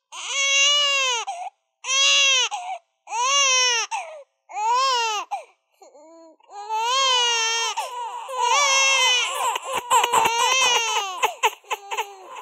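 A baby crying in long wails, four separate ones about a second each, then several cries overlapping and running together in the second half.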